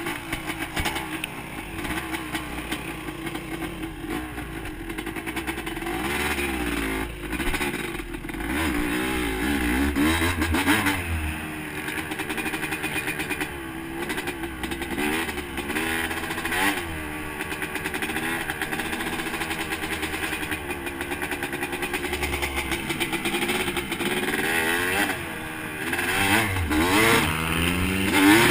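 Dirt bike engine running and revving, its pitch rising and falling over and over with the throttle. It gets louder near the end.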